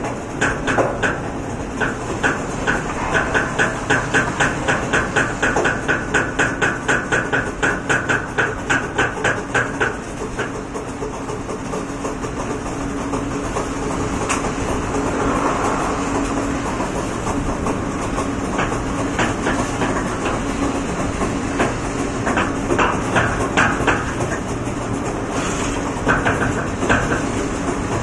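Machinery in a spiral-pipe plant running with a rhythmic metallic clacking, about three clacks a second, over a steady hum. The clacking gives way to a steadier running noise about ten seconds in, and clacks come back near the end.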